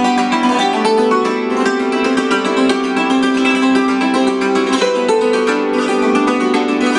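Hammered dulcimer played with two hammers: a fast, dense stream of hammer strokes on the strings, the struck notes ringing on under one another.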